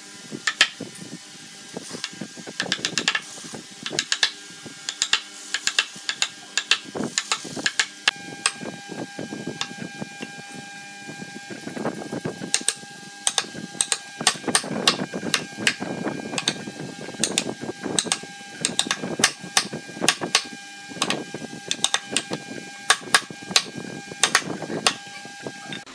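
Wooden mallet striking a chisel to chop a mortise in a hardwood bed rail: sharp wooden knocks in quick, irregular runs, with rougher rasping stretches between them.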